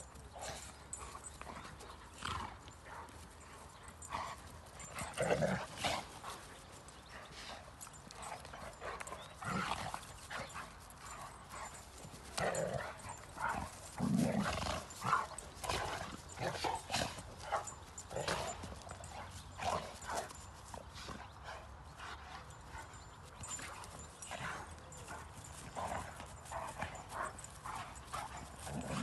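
Two Rhodesian Ridgebacks play-fighting and chasing: irregular scuffles, thuds of paws on turf and brief dog vocalizations, loudest about five seconds in and again around fourteen seconds.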